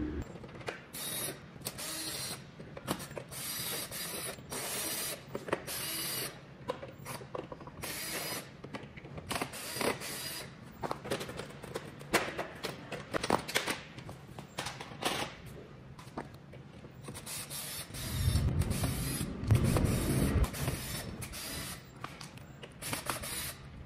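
Clicks, scrapes and rattles of hard plastic and metal parts as a treadmill's bottom cover and screws are handled, then a cordless drill runs for about two seconds, driving screws out, about 18 seconds in.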